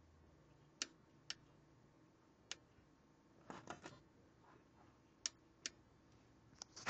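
Sharp clicks in near silence, some single and some in quick clusters, typical of the power switch of an Atten unit being flicked on and off while the unit fails to turn on.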